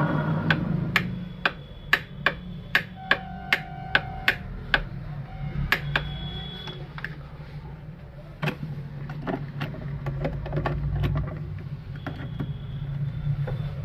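Plastic switches on an electrical switchboard clicked on and off in quick succession, about two clicks a second for several seconds, then a few scattered clicks and knocks, over a steady low hum.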